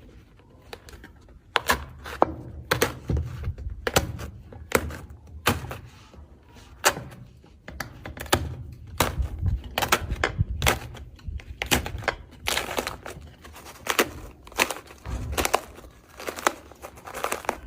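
Slime being poked and squeezed by hand, giving irregular sharp pops and clicks, a few a second, over a low squelching rumble.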